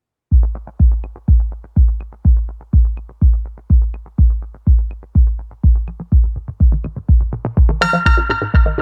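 Electronic background music: a steady heavy kick drum about twice a second, joined by a synthesizer melody about a second before the end.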